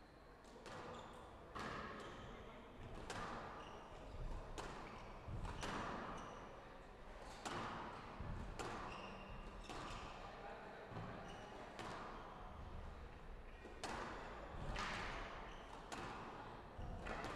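Squash rally: the ball struck by rackets and hitting the court walls about every one to one and a half seconds, each hit ringing briefly, with short high squeaks of court shoes on the wooden floor between hits.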